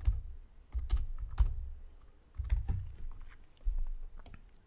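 Typing on a computer keyboard: separate keystrokes at an uneven pace as a date is entered.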